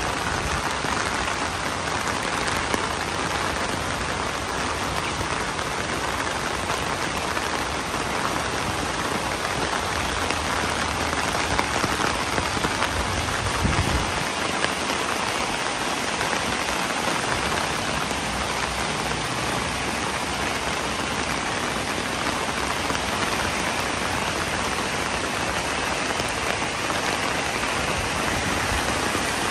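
Steady rain falling on a wet paved lane and its puddles, with a brief low thump about halfway through.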